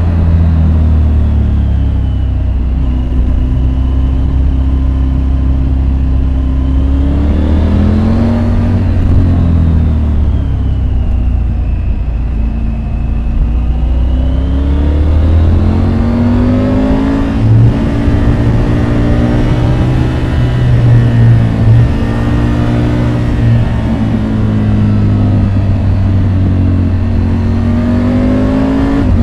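Triumph Tiger 850 Sport's 888 cc inline three-cylinder engine running under load on the move, its revs falling and rising several times as the rider rolls off and accelerates.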